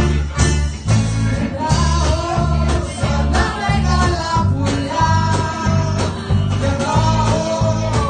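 Live band playing a song: a woman sings over a steady beat of bass, drums and electric guitar, her voice coming in about a second and a half in.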